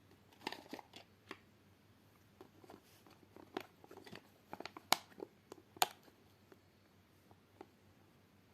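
Packaging being handled and opened by hand: an irregular run of small clicks, taps and crinkles, the two sharpest about five and six seconds in.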